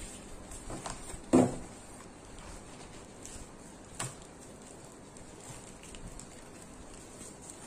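A stack of padded bubble mailers set down on a wooden table with one dull thud about a second and a half in, then a sharp tap near the middle, amid soft rustling of the mailers and a plastic polymailer being handled.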